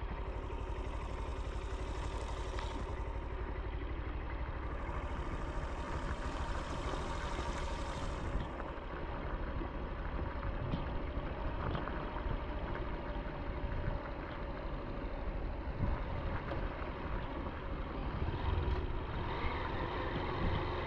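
Motorcycle engine running steadily, with a low rumble and a few faint clicks.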